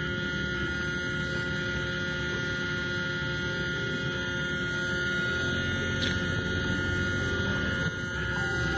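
Steady hum and low rumble of a car running, heard from inside the cabin, with no change in pitch or level.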